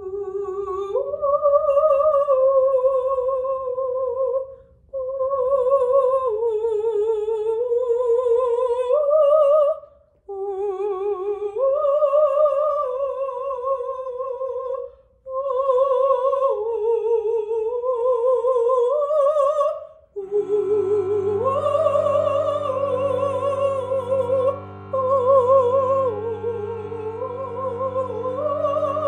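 A woman's voice singing a slow wordless melody with vibrato, in phrases of about five seconds with short pauses for breath between them. About two-thirds of the way through, a cello joins beneath the voice with sustained low bowed notes.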